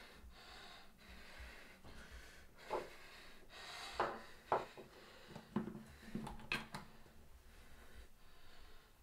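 A bottle and a drinking glass knocked and set down on a tabletop: several sharp clicks and clinks about four to seven seconds in, with heavy breaths through the nose before them.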